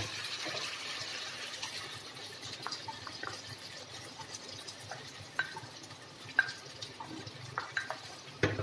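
Chicken and masala sizzling in a frying pan: a steady hiss that eases a little over the first few seconds, with scattered soft ticks and crackles as yogurt goes into the pan.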